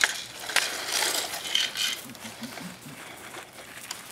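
Small gravel stones clattering as a plastic toy excavator's bucket scrapes them up and tips them into a plastic toy dump truck, with a few sharp clicks of plastic parts knocking together. The rattle of rocks comes about a second in and lasts about a second.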